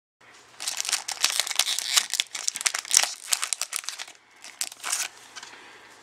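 Foil wrapper of a Pokémon trading card booster pack crinkling and tearing as it is ripped open by hand: a dense run of sharp crackles for about three and a half seconds, then softer rustles with a couple of short crinkles as the cards are slid out.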